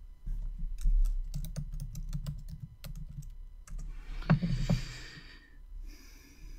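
Typing on a computer keyboard: a quick run of keystrokes entering a search word, followed by a brief louder noise about four seconds in.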